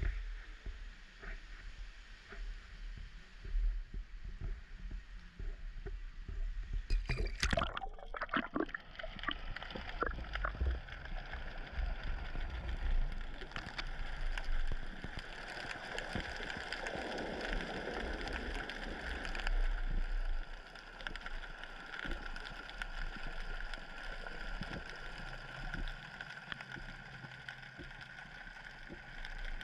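Wind rumble on a camera above the sea, then a splash about seven seconds in as the camera drops into the water. After that comes underwater sound: a steady hiss with a faint steady tone and scattered clicks.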